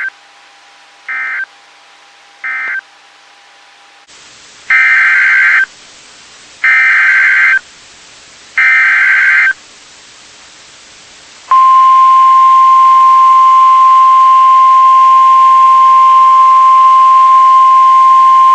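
NOAA Weather Radio SAME data tones: three short screechy bursts marking the end of one alert, then three longer bursts of the header for the next alert. About eleven seconds in, the steady 1050 Hz Weather Radio warning alarm tone begins and holds, loud and unbroken.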